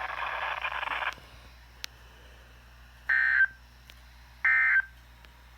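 Two short, harsh bursts of EAS/SAME digital end-of-message code (the NNNN burst) broadcast over NOAA Weather Radio, about 1.4 s apart. They mark the end of the Required Weekly Test.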